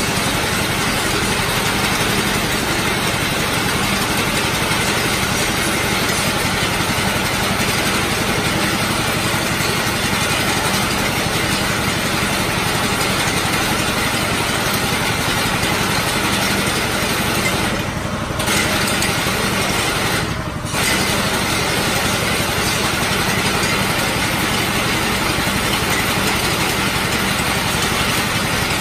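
Paddy reaper's Honda four-stroke petrol engine running steadily, its level dipping briefly twice about two-thirds of the way through.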